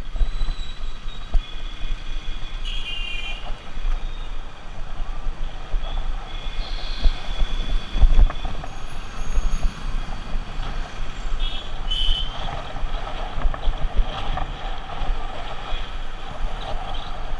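Wind rumbling over a helmet-mounted camera on a moving motorcycle, with road and traffic noise and a loud gust about eight seconds in. Short horn beeps from the surrounding traffic come a few times.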